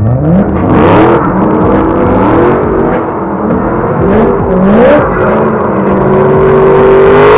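BMW drift car engines revving hard, their pitch rising and falling over and over before holding a steady high note near the end, with the rear tyres spinning and smoking as the cars drift.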